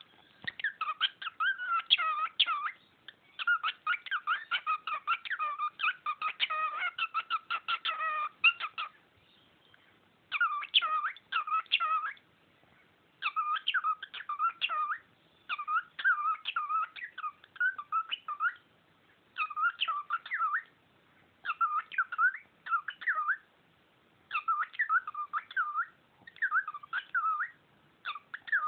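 Cockatiel whistling and chattering: a dense run of quick chirps for the first several seconds, then short whistled phrases of rising and falling notes, repeated every couple of seconds.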